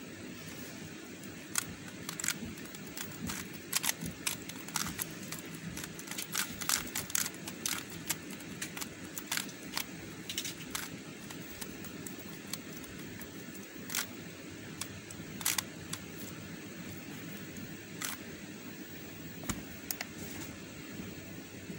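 Square-1 puzzle being turned by hand: irregular runs of sharp plastic clicks as its layers twist and slice, busiest in the first half and sparser toward the end, over a steady low hiss.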